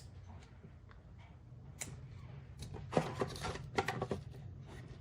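Handling noise from a hard drive being picked up and moved by hand: scattered clicks and rustles, busiest in the second half, over a steady low hum.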